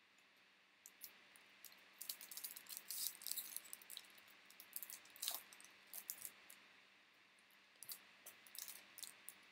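Faint crinkling and rustling of a baseball card pack's wrapper and cards being handled, as a run of small crackles that thickens about two seconds in and again near the end.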